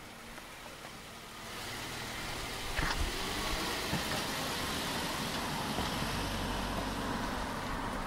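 A car moving slowly close by, its engine and tyre noise swelling about a second and a half in and then holding steady. There is a single short knock a little later.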